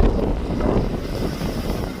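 Strong wind buffeting the microphone over the steady low rumble of an airliner's jet engines at takeoff power, with a faint steady whine.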